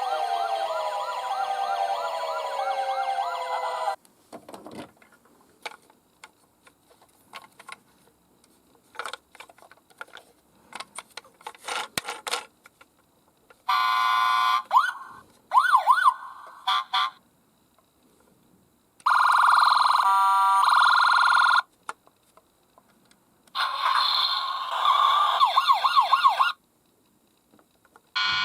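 Electronic sirens of toy police car and fire engine minicars. At first several sirens sound together; later come separate bursts of wailing, rising and falling in pitch, and a steady pulsing alarm tone in the middle. Scattered small clicks and knocks fall in the gaps between the sirens.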